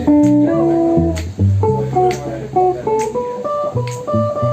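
Live band: electric guitar playing a run of single notes over electric bass and drums, with drum or cymbal strokes about twice a second.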